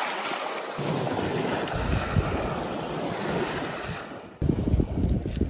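Small lake waves breaking on the shore, with wind buffeting the microphone in low rumbling gusts. The sound changes suddenly about a second in and again after about four seconds.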